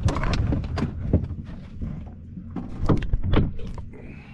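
Irregular knocks and clatter of handled gear, clustered in the first second and again around three seconds in, over a steady low hum.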